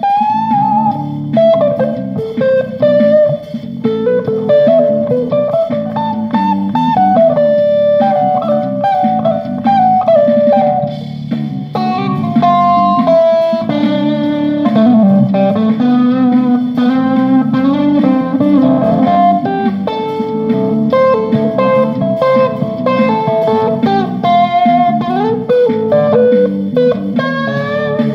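Electric guitar improvising a wandering single-note lead line over a steady, lower accompaniment.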